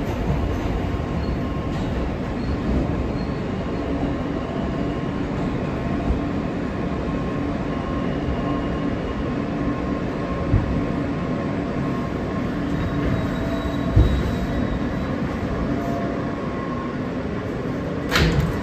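New York City subway car running through a tunnel, heard from inside the car: a steady rumble of wheels on rails with faint whining tones and a couple of knocks. Near the end there is a brief louder burst as the train reaches a station platform.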